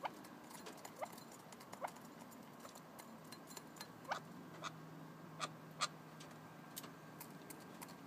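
Red-legged partridges pecking at feed in a bowl: irregular sharp clicks of beaks striking the bowl and pellets, about two a second.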